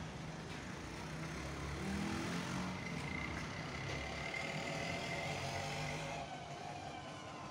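Street traffic: a motor vehicle going by, growing louder about two seconds in and easing off near the end.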